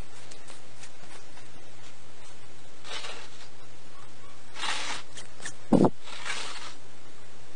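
Two cats squabbling over a bowl of milk: three short hissy bursts spread through, and one dull thump a little past the middle as the bowl is pawed and knocked on the floor.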